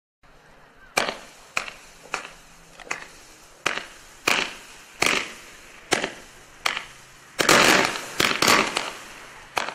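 Multi-shot consumer firework firing a string of sharp pops, roughly one every two-thirds of a second, each with a short echo. About three-quarters of the way through, a quicker cluster of shots comes.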